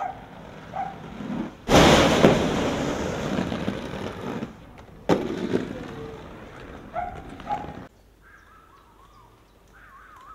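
Inline skate wheels rolling hard over pavement with a loud rush lasting a few seconds, then one sharp clack from a skate striking the ground or ledge about five seconds in. Near the end the sound cuts to a much quieter stretch with birds chirping.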